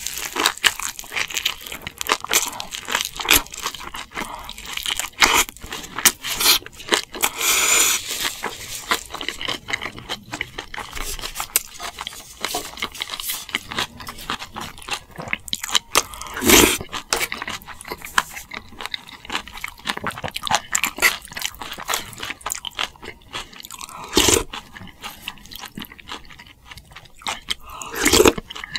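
Close-miked eating: steady crunching and chewing of food, made of many short crackling sounds, with a few louder sharp sounds spaced well apart.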